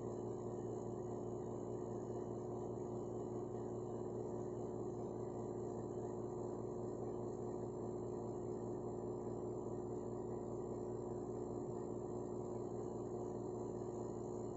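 A steady hum of several fixed pitches, strongest in the low-middle range, with no change and no separate events.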